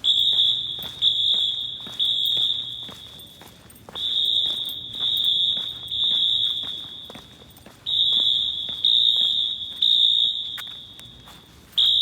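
Wheelock AS fire alarm horns sounding in unison in the temporal-three evacuation pattern: three loud, high horn blasts about a second apart, then a pause, repeating about every four seconds. The sound echoes off the concrete of the parking garage.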